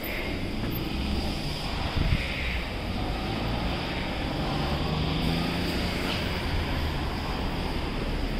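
Street traffic: a steady low rumble of vehicles, swelling slightly near the middle, with a short knock about two seconds in.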